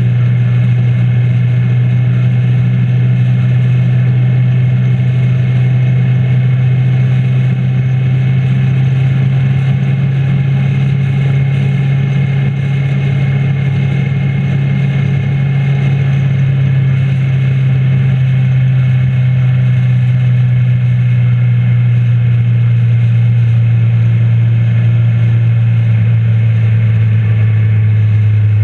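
Motorcycle engine running at a steady cruising speed, holding an even drone, with a rush of wind and road noise over it.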